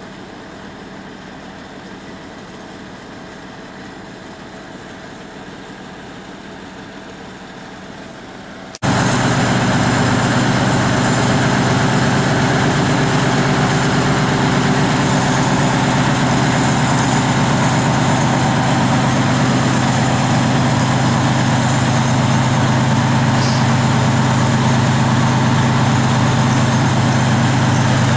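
Heavy diesel engine of logging equipment running steadily at idle. It is fairly faint at first, then jumps suddenly to much louder and closer about nine seconds in.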